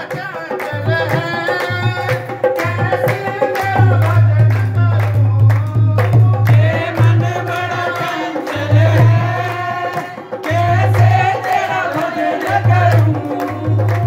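A devotional bhajan sung live at full voice, with a dholak drum beating a steady rhythm and hand claps keeping time.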